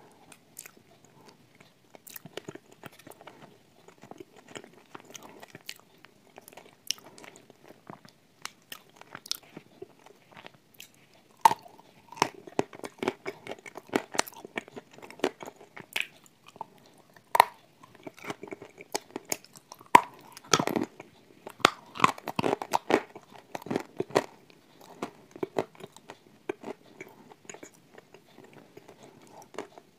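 Close-up chewing of crunchy Turkistan tiles with cream: a run of sharp, irregular crunches with wet mouth sounds, growing denser and louder about a third of the way in and easing off again near the end.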